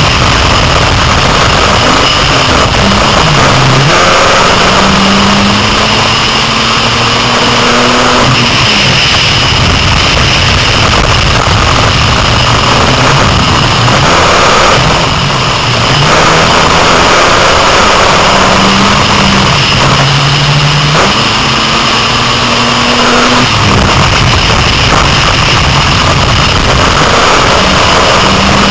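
Six-cylinder dirt-track race car engine heard from inside the cockpit, running loud. Its pitch climbs as it accelerates down the straights and drops as it lifts for the turns, twice over.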